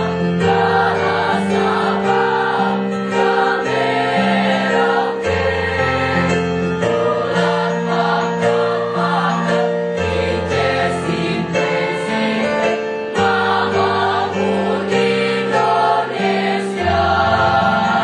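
A choir singing in parts over an accompaniment that holds low bass notes, changing chord about every second.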